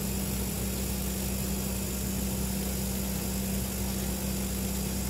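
Refrigerator compressor running with a steady, even hum, switched on by the defrost timer in its cooling position.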